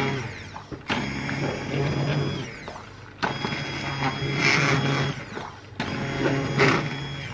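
Immersion hand blender blending soup in a steel pot, its motor switched on in three bursts of two to three seconds each, with a steady hum that starts sharply each time.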